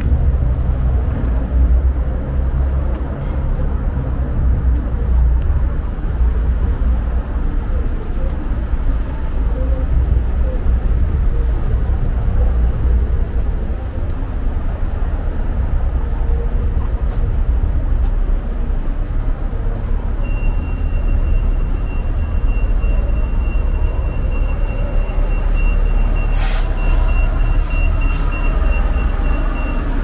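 City street sound on foot: a steady low rumble of engines and traffic around road-construction machinery. About two-thirds of the way in a high electronic beep starts and carries on, the kind a working machine's alarm gives. Near the end there is one sharp crack, followed by a few smaller clicks.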